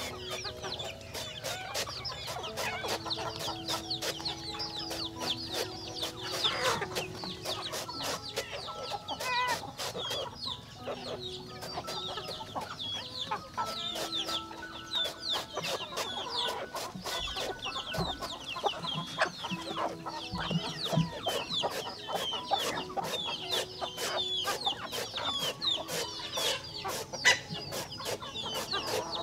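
A flock of chickens clucking and peeping, many short high calls overlapping continuously, with frequent light ticks mixed in.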